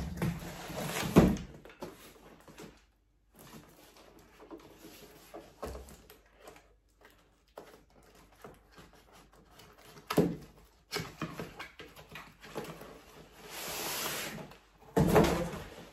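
Cardboard box being opened by hand: flaps and packaging rustling, with a sharp knock about a second in and another about ten seconds in. Near the end a longer rustle as a nylon carry bag is drawn out of the box.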